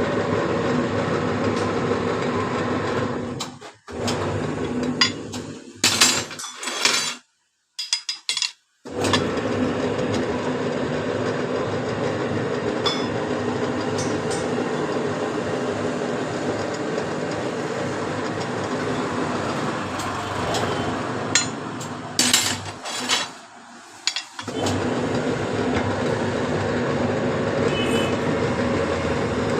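A workshop machine running with a steady hum, stopping briefly three times, with metal clinks and clanks around the stops.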